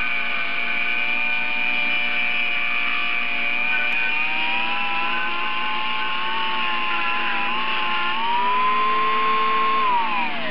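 Dremel rotary tool driving a flexible-shaft (snake) handpiece, grinding casting flash from the cast-iron intake runners of a Mazda rotary engine's center iron. The motor makes a steady high whine that wavers and climbs in pitch, jumps higher about eight seconds in, then winds down near the end.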